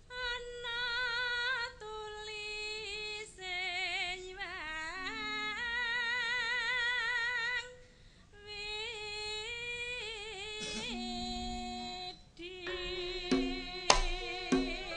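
A female Javanese sinden singing solo. She sings long phrases with a wide vibrato on held notes, with short breaks between phrases.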